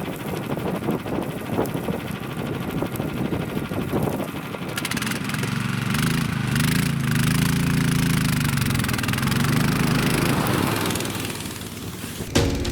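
An engine running, its pitch rising and falling through the middle as it speeds up and slows, then dying away near the end.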